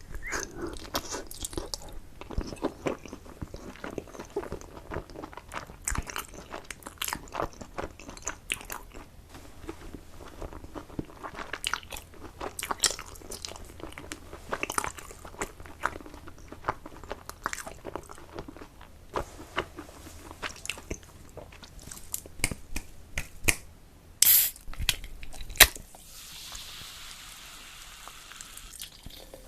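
Close-miked chewing and biting of food, with frequent wet mouth clicks and smacks. Two louder sharp clicks come a few seconds before the end, followed by a soft rushing noise for a few seconds.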